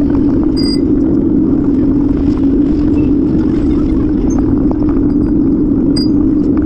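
Loud, steady rumble with a constant hum: riding noise from a moving bicycle, tyre and wind noise picked up by the bike-mounted camera. Two brief high pings, about half a second in and near the end.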